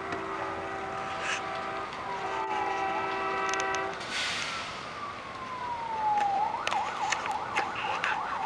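A train horn blows a held chord, breaking briefly about two seconds in and stopping at about four seconds, over an emergency vehicle's siren. The siren then glides slowly down and, from about six and a half seconds, switches to a fast wail rising and falling about twice a second.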